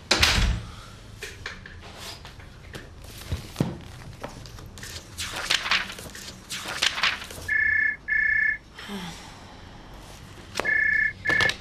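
A thump at the start, then rustling and handling of things at a desk, then a telephone ringing in the British double-ring pattern: two double rings about two seconds apart near the end.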